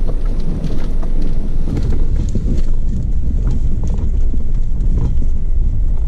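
Jeep Wrangler driving slowly over a bumpy dirt track, heard from inside the cab: a steady low rumble of engine and tyres, broken by frequent small knocks and rattles as it jolts over the ruts.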